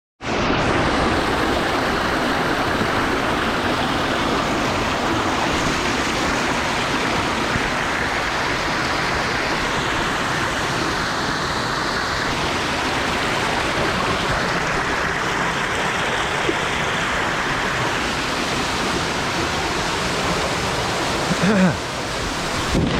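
Eas Chia-aig waterfall: a steady, full rush of falling water.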